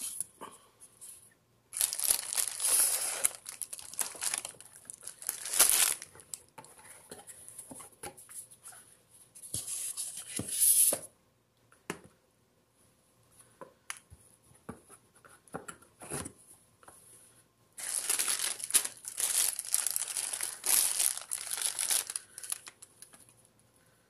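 Clear plastic bag crinkling and rustling in several spells, the longest near the end, as a wrapped steam iron is handled and lifted out of its box. Scattered light knocks and taps come between the spells.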